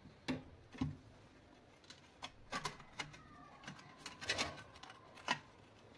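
Faint, scattered clicks and taps from handling the metal soleplate and thermostat assembly of an electric iron, with a faint drawn-out tone in the background that slowly falls in pitch over the second half.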